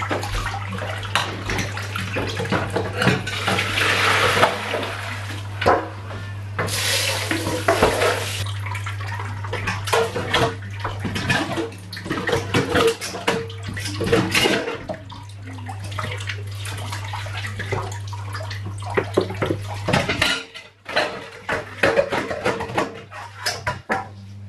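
Dishes being washed by hand in a stainless steel kitchen sink. The tap runs in short bursts, with plates, a metal bowl and cutlery clattering in between. A steady low hum underneath cuts off near the end.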